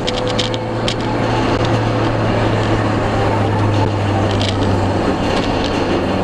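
Steady car cabin noise while cruising: a constant low engine drone under road and wind rush, with a few light clicks in the first second and one more past the middle.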